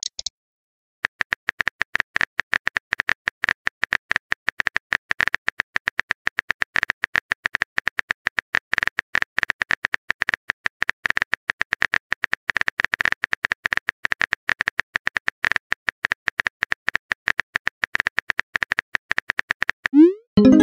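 Simulated phone-keyboard typing clicks from a texting-story app: a rapid, steady run of short clicks as a message is typed out letter by letter. Near the end comes a short rising swoop, the app's message-sent sound.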